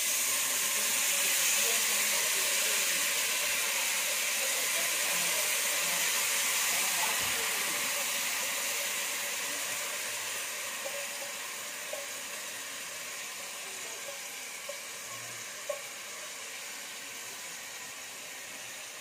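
Hot liquid in a pressure cooker pot hissing and bubbling steadily as soaked rice is tipped in, slowly dying down. A few light taps from the bowl near the end.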